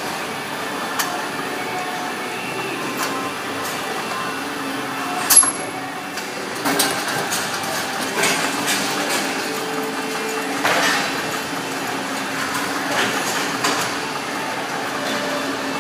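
Cucumber sorting and packing line running: a steady conveyor machine hum with irregular clicks and knocks, the loudest a sharp click about five seconds in.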